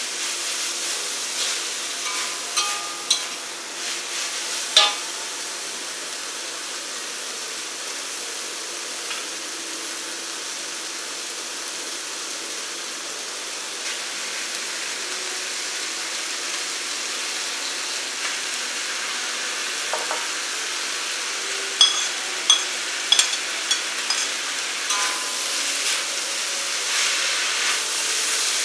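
Potato (glass) noodles sizzling in a wok as they are stir-fried, with a steady frying hiss and a metal spatula scraping and clinking against the wok. The clinks are sharpest about five seconds in and come in a quick cluster a little after twenty seconds.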